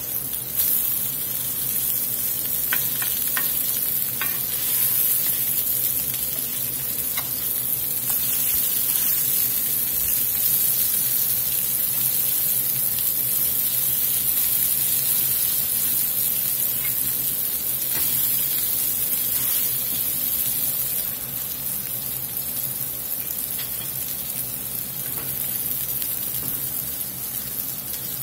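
Ground beef patties sizzling steadily as they sear in vegetable oil in a cast-iron skillet over medium-high heat, with a few light clicks of a metal spatula against the pan as the patties are turned.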